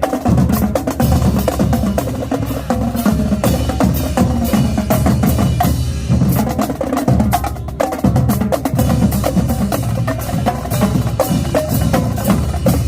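Marching band drumline playing a fast cadence: snares, tenors and bass drums struck in rapid, dense rhythm, with a brief drop about six seconds in and again near eight seconds.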